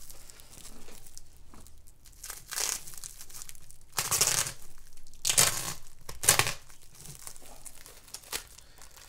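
Cellophane wrap on a cardboard comic mailer crinkling and tearing as it is slit with a utility knife and pulled apart. It comes in a few short rustling bursts, the loudest about four to six seconds in.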